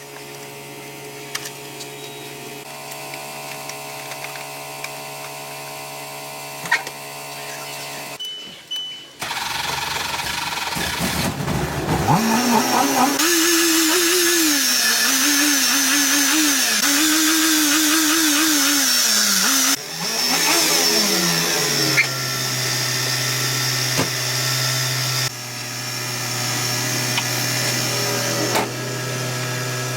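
A motor or engine running: a steady hum at first, then its pitch rising and falling again and again as it is revved or put under load in the middle stretch, settling back to a steady hum near the end, with several abrupt changes in sound.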